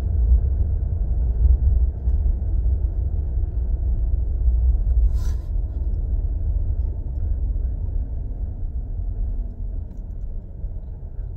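Low, steady rumble of a car's engine and tyres heard inside the cabin while driving, easing off slightly near the end, with one brief sharp noise about five seconds in.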